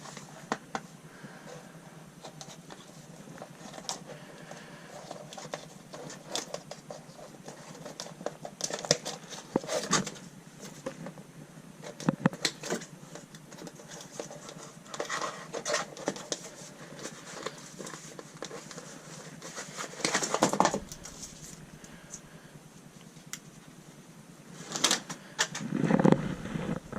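Intermittent crinkling, rustling and sharp clicks of hands working bitumen sound-deadening mats, in irregular bursts with the loudest around the middle and near the end.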